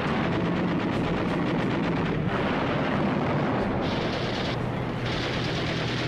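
Warship anti-aircraft guns firing rapidly, a dense, unbroken stream of shots, with a low steady hum underneath.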